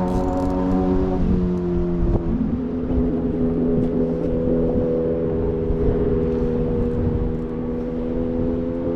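A motor engine running steadily, its pitch stepping down about one and two seconds in, over a low rumble of wind on the microphone.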